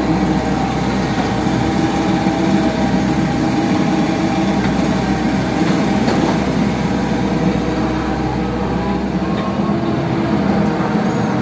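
A backhoe's diesel engine running steadily at a constant speed.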